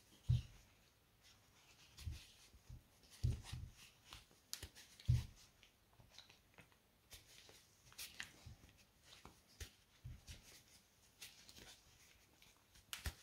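Faint handling sounds of crocheting thick cotton cord with a large crochet hook: soft rustling and light clicks as the hook pulls the cord through, with four dull low thumps in the first five seconds or so.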